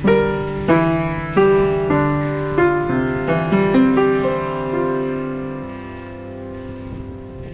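Background music on piano or electric piano: a slow phrase of struck notes in the first few seconds, then a last chord that rings out and fades.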